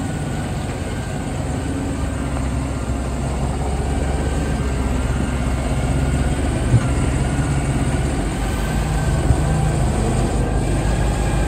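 Fendt 939 Vario tractor's diesel engine idling steadily, getting a little louder partway through. Two short sharp knocks come in the second half.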